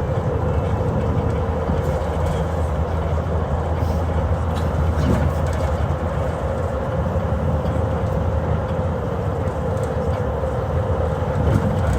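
Steady drone of an Irisbus bus on the road, heard in the passenger cabin: a low engine hum with a steady higher note over road noise, with a few faint light rattles.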